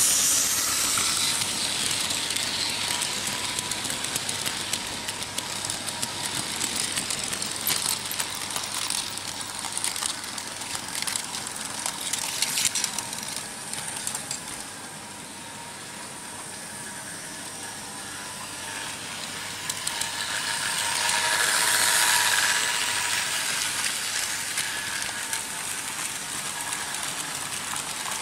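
Märklin H0 model trains running on metal M-track: a steady rattling clatter of wheels on the track, with sharp clicks around a third of the way in as wheels cross rail joints or points. It swells loudest at the start and again about three-quarters through as a train passes close by.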